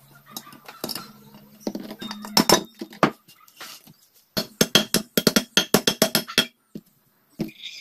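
Hammer tapping on the aluminium crankcase of a 150cc tricycle engine to split the case halves. A few single metallic knocks come first, then a quick run of ringing taps, about seven a second, for about two seconds.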